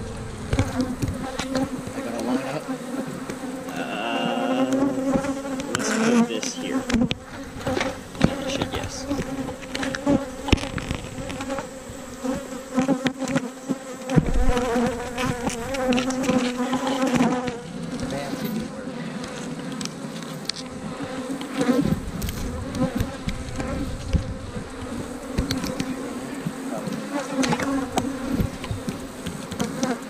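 Honey bees from an opened hive buzzing in large numbers: a dense, steady, slightly wavering hum. Occasional knocks come as the wooden hive frames and boxes are handled.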